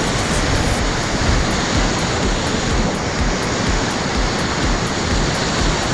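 Loud, steady rush of river whitewater around an inflatable kayak running a rapid, with an irregular low rumble underneath.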